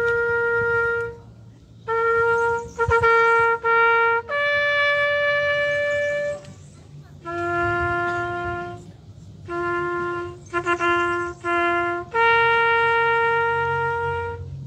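Solo trumpet playing a slow, bugle-style call of separate held notes on about three pitches. It ends on a long held note near the end.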